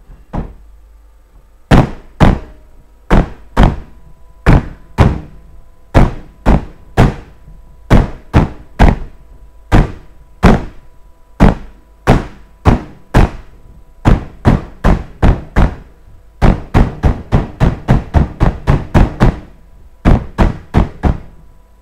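Metal cake pot holding sponge batter knocked repeatedly to settle the batter level. The sharp knocks come about two a second, often in pairs, each with a brief metallic ring, and run quicker for a few seconds near the end.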